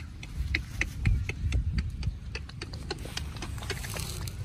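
Irregular small clicks and ticks, about three or four a second, over a steady low rumble.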